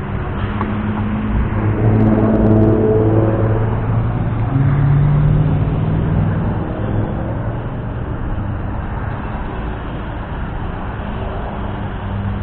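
Motor vehicle engine running with a steady low hum, swelling in loudness and pitch about two seconds in and easing back after about six seconds, like traffic going by.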